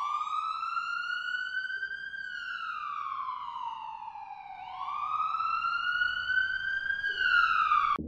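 A siren wailing in two slow cycles: its pitch rises, sinks slowly, rises again, then cuts off suddenly near the end.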